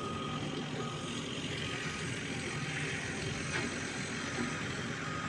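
Steady traffic or vehicle noise, with a faint high beep that comes and goes a few times.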